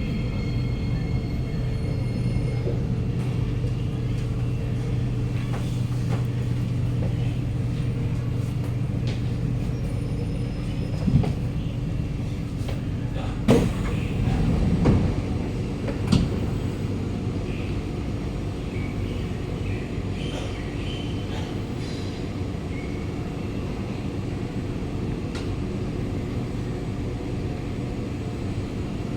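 Kawasaki Nippon Sharyo C751B metro car heard from inside as it slows and stands at a station: a steady low hum with a faint high whine that fades out in the first few seconds, and a few sharp knocks around the middle.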